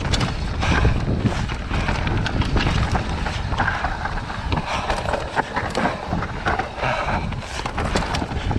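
Commencal Meta Power electric mountain bike descending a dirt singletrack: tyres rolling over dirt and roots with a continuous low rumble, and the chain and frame rattling with frequent knocks. Wind buffets the camera microphone.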